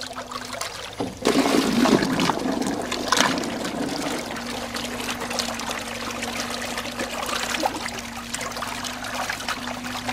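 Phantom Bantam 12-volt electric trolling motor running submerged in a barrel of water, its propeller churning and splashing the water, with a steady low motor hum. The churning is loudest about a second in.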